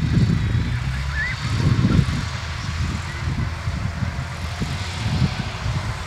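Schlüter tractor's diesel engine working steadily under load, pulling a harrow across a field.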